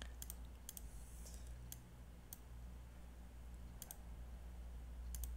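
Faint computer mouse clicks, single clicks and quick double clicks spread through, over a low steady hum.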